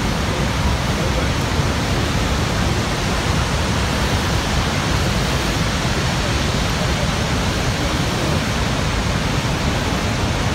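Niagara's Horseshoe Falls, close to the brink: a huge volume of water pouring over the edge into the gorge, heard as a loud, steady, unbroken rush.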